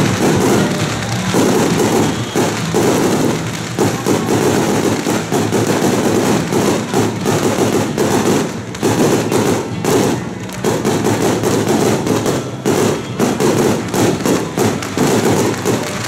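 Strings of firecrackers going off in a dense, continuous crackle of rapid bangs.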